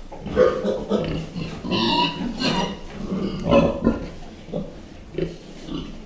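Large pigs grunting irregularly at close range, a string of short grunts with the loudest about two and three and a half seconds in.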